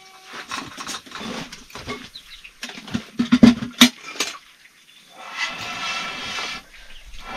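A run of sharp knocks and clatter, loudest three to four seconds in, then one long harsh bleat from the flock of sheep and goats a little after five seconds.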